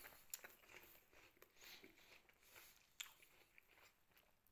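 Faint crunching of someone chewing a bite of crisp Cripps Pink (Pink Lady) apple, a few soft crackles scattered through.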